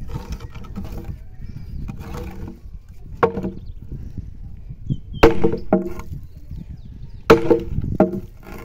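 Sledgehammer striking a wooden block on an ox-cart wheel, about five heavy, unevenly spaced blows, each a sharp thud with a brief ring.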